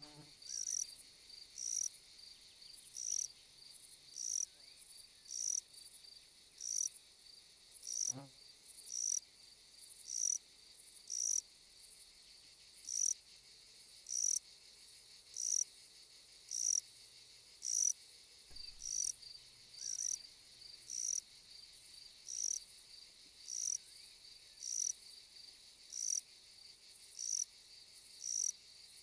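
Insect chirping: short high-pitched chirps repeating evenly, about one and a half a second, over a steady high buzz.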